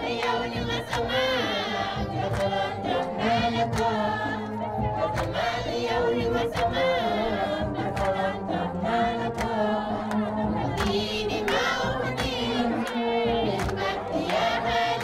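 Celebratory group singing with wavering melody lines over sharp percussive beats, with crowd noise.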